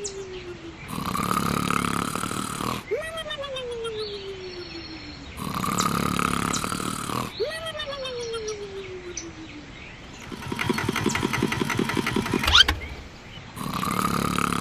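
Cartoon-style snoring sound effect on a loop: a rumbling snore in, then a whistle out that falls slowly in pitch, about every two and a half seconds. Around ten seconds in it gives way to a fast rattle that ends in a sharp rising whistle.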